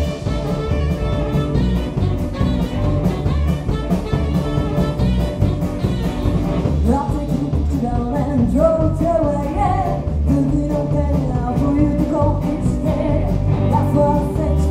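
Live rock and roll band playing: drum kit, electric guitars and saxophone over a steady beat, with a woman's lead vocal coming in about halfway through.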